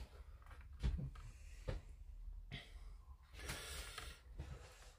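Faint small clicks and taps of plastic scale-model parts being handled and pressed into place by hand, with a soft breath near the middle over a low steady hum.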